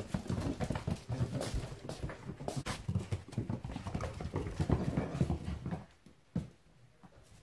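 A border collie puppy running across bare wooden floorboards, its paws and claws clattering irregularly, with a person's heavier footsteps on the boards alongside. The clatter dies away about six seconds in.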